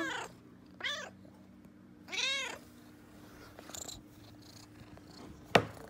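Tabby cat meowing three times: a falling meow at the start, a short one about a second later, and a longer meow that rises and falls. A single sharp click near the end.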